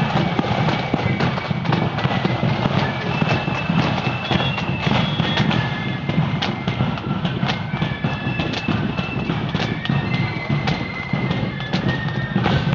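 Marching flute-and-drum band playing: a high, shrill flute melody over loud, busy drumming.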